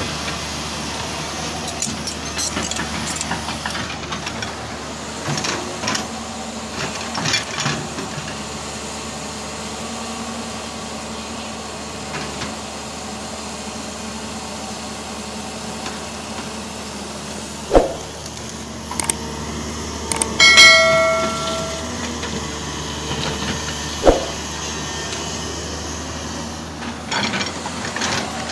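Hyundai 210 crawler excavator's diesel engine running steadily as it digs, with scattered clanking. Two sharp knocks come a few seconds apart in the second half, and between them a loud pitched tone lasts about a second.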